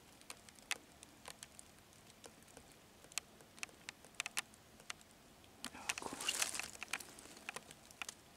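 Faint scattered clicks and crackles in dry forest leaf litter, with a louder rustle of leaves about six seconds in.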